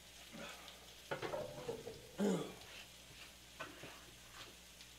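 A plastic cutting board and kitchen utensils being handled and set down, a few light knocks and clatters, over faint sizzling from a lobster tail on a tabletop electric grill.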